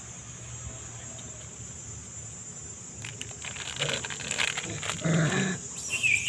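Steady high insect buzz from the surrounding trees, with irregular rustling and knocks in the second half.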